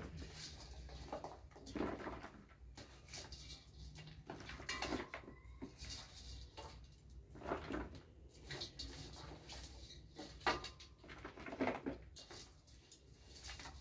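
Irregular clinks, rustles and knocks of hands scooping chopped vegetables from a stainless steel bowl and packing them into a plastic jar for pickling.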